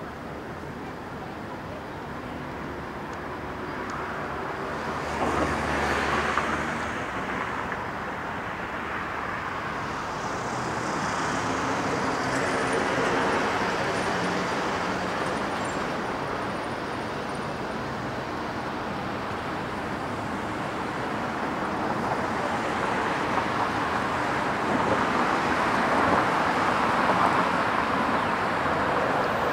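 Road traffic on a wide city street: vehicles drive past one after another, each swelling and fading, the loudest about five to seven seconds in with a deep engine rumble.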